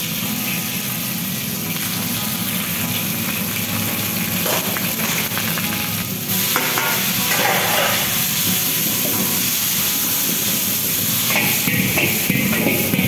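Food sizzling in a hot wok while a metal spatula stirs and scrapes it: scrambled egg first, then shredded vegetables stir-fried. The frying gets louder a little past halfway.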